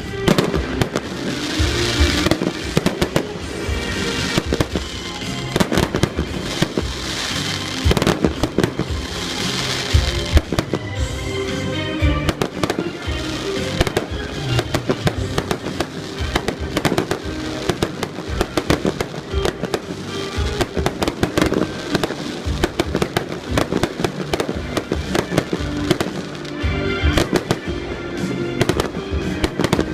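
Fireworks display going off in rapid, overlapping bangs and crackles, with stretches of dense crackling, over music with steady tones.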